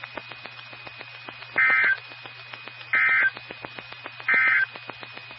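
Emergency Alert System end-of-message data bursts received over NOAA Weather Radio: three short, identical, raspy two-tone digital squawks about 1.3 s apart, marking the end of a flood warning. A steady hum and rapid clicking radio static run underneath.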